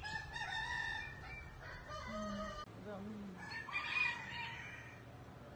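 Several roosters crowing, one crow overlapping or following another, the loudest about four seconds in.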